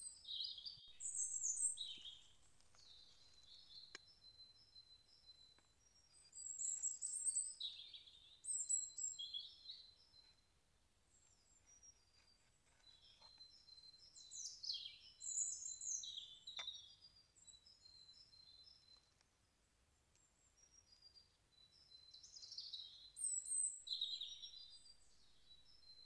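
Songbirds calling in bouts of quick, high chirps and trills every several seconds, with a couple of faint clicks between them.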